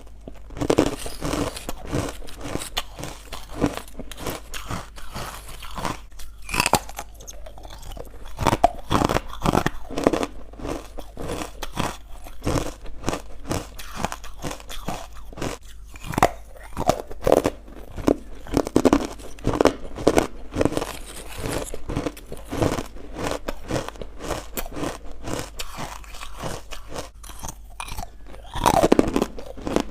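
Close-up chewing of crunchy white ice bites: a steady run of irregular, crisp crunches as the ice is bitten and ground between the teeth, with a louder burst of crunching near the end.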